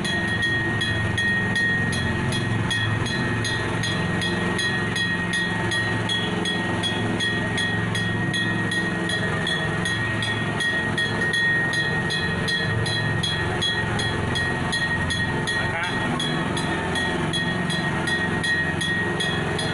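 Small amusement-park tourist train running, heard from inside its open carriage: a steady drone with a quick, even ticking and a steady high whine.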